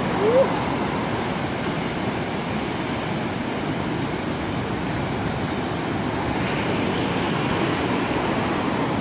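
Typhoon-swell surf breaking and washing over the shallows, a steady rushing noise, with a short rising whoop from a voice right at the start.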